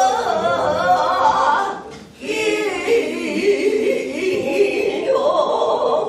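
Voice singing a Korean shamanic ritual chant (gut) with long, wavering, bending notes, mostly unaccompanied; the line breaks off briefly about two seconds in.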